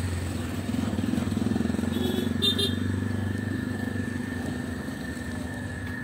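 A vehicle engine running steadily, with a brief high chirp about two and a half seconds in.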